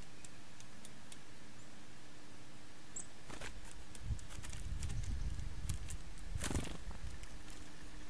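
Backyard outdoor ambience with a faint steady hiss and a single short, high bird chirp about three seconds in. After that comes an uneven low rumble for a few seconds, with two brief rushing swells.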